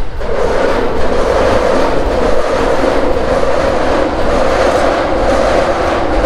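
A train passing on the elevated tracks directly above the shop: a loud, steady rush of wheel and rail noise, heard through the ceiling, that sets in at the start and drops away near the end.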